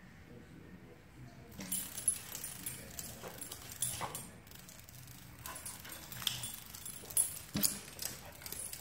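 A dog's claws clicking and tapping on a hard, smooth floor as it steps and paws about, a scatter of irregular sharp taps starting about a second and a half in.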